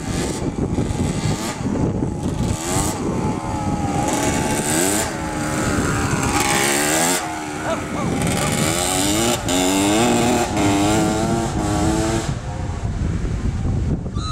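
Kawasaki KX125 two-stroke single-cylinder dirt bike riding past, its engine pitch climbing over and over as it accelerates. It grows louder as it approaches, is loudest about ten seconds in, then fades as it rides away.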